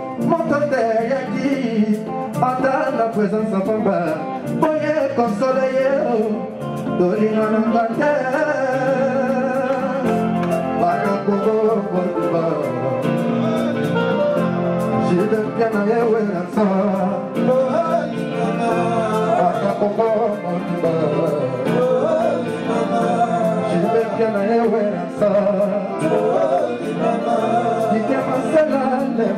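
A male lead singer sings a Congolese rumba line into a microphone over a live band with electric guitar and drums; some held notes waver with vibrato.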